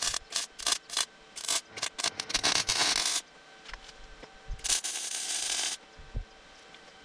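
MIG welding arc on steel chassis tubing, going in a string of short tack-weld bursts over the first two and a half seconds, then two longer runs of about a second each.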